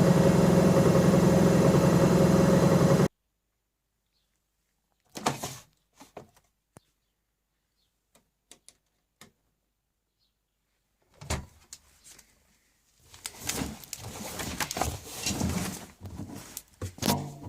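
Bauknecht front-loading washing machine running with a loud steady hum that cuts off suddenly about three seconds in. After a pause come a few sharp clicks, then irregular knocks and rattling near the end, such as the door being opened and handled.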